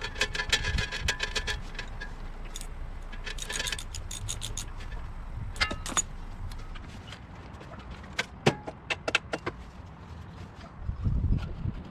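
Metal hand tools and parts clinking and rattling in quick runs of sharp clicks, some ringing briefly, with scattered single clicks later and a short low thud near the end.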